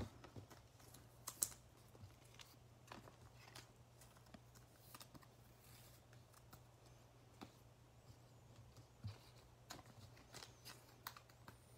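Faint, scattered clicks and ticks of basketball trading cards being shuffled in the hands and laid down on a table, over a low steady hum.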